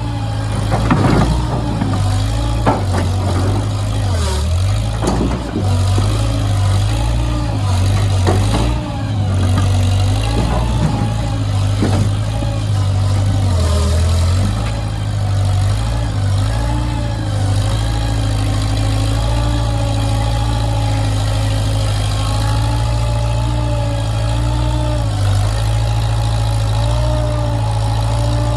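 An engine running, its speed shifting, with several sharp knocks or clanks in the first half; from about halfway on it settles into a steady idle.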